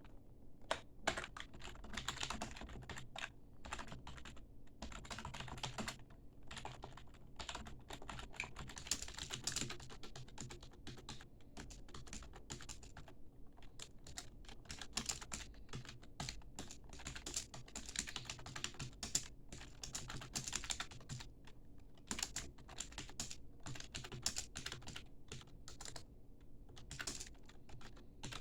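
Typing on membrane computer keyboards: a quick, irregular run of soft key clicks, broken by short pauses.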